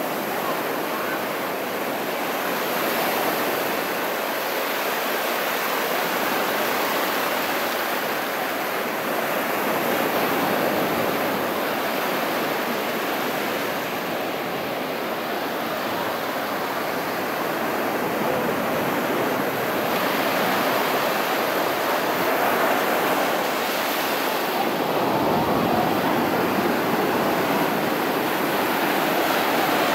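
Small waves breaking and washing up a sandy beach, a steady rush of surf and foam.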